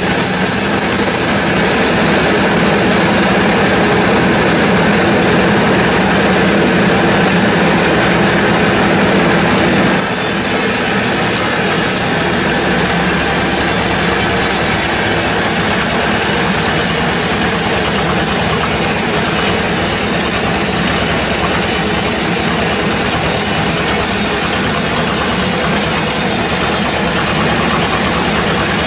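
Sawmill saw running loud and steady while cutting a teak log, with a slight change in the sound about ten seconds in.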